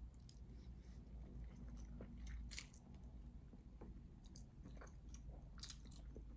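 Faint close-up chewing and wet mouth smacks from a person eating a mouthful of spaghetti, with a couple of louder smacks partway through.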